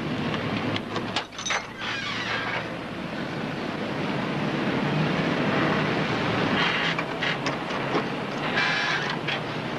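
A steady, rumbling vehicle noise runs throughout. Over it come a few knocks about a second in, from a car's trunk lid being handled, and noisy scrapes near the end.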